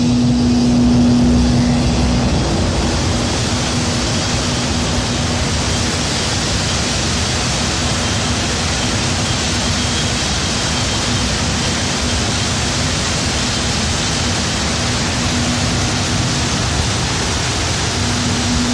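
Glass tempering furnace's air blowers running: a loud, steady rush of air with a low, steady hum underneath.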